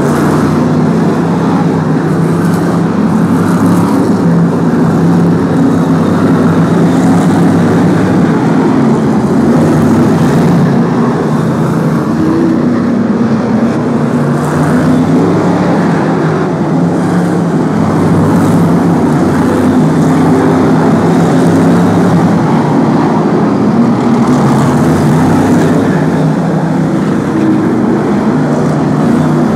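A field of BriSCA F1 stock cars racing, their V8 engines running together in a loud, continuous drone.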